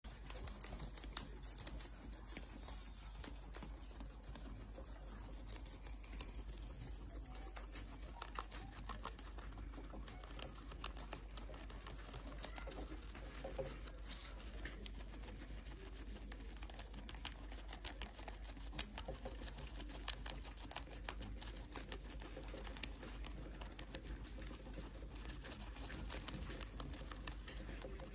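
Guinea pig chewing a green leaf and hay: a rapid, fine crunching of small clicks with no pauses.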